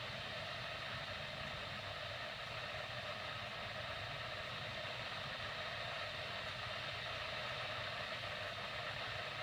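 Weather radio receiver hissing steadily on dead air: the carrier is up with no audio, as the station has gone off the air.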